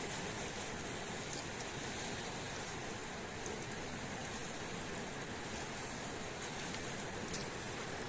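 Steady rushing wash of moving water, with a few faint ticks near the end.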